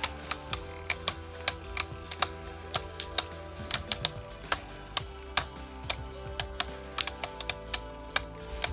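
Beyblade spinning tops clashing in a stadium: sharp, irregular plastic clacks, about three or four a second, over steady background music.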